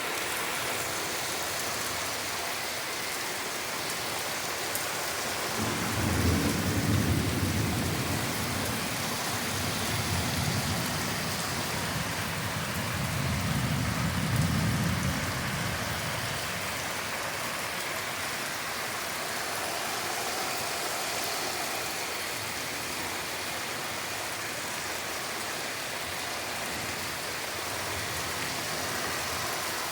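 Heavy rain pouring steadily. A long rumble of thunder rolls in about six seconds in, swells twice and fades out after about ten seconds, leaving the steady rain.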